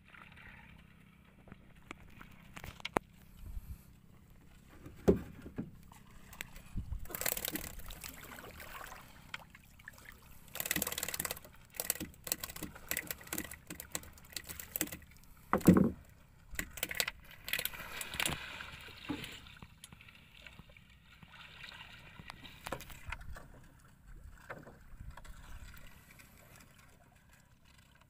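Water sloshing and splashing around small outrigger boats, with scattered knocks of wood and bamboo and a few louder thumps, the loudest about sixteen seconds in.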